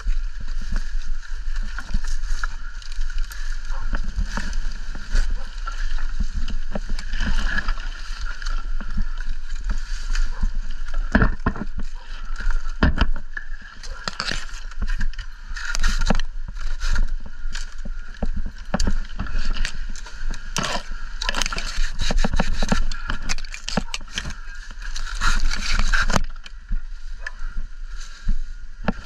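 Wind buffeting the microphone with a steady low rumble, over irregular crackling and scraping of dry palm-trunk husk and fronds as a climber works his way around the trunk.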